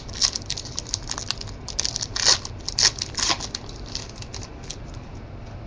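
Wrapper of a trading card pack being torn open and crinkled: a run of sharp crackling rips and rustles over the first few seconds, then it settles.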